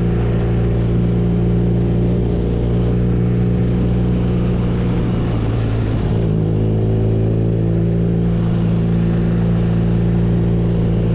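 BMW R nineT's boxer twin engine running steadily under way, with a brief change in engine pitch about halfway through before it settles again.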